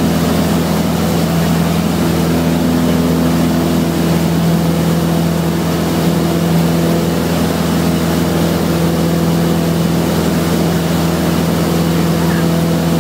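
Piston engine and propeller of a single-engine light airplane droning steadily at an even pitch, heard from inside the cockpit.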